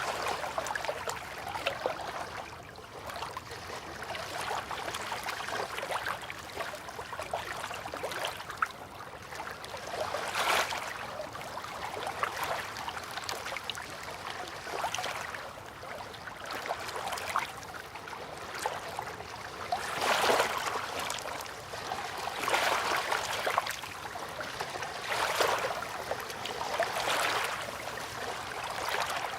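River water lapping and splashing at the bank, with louder surges of small waves every few seconds.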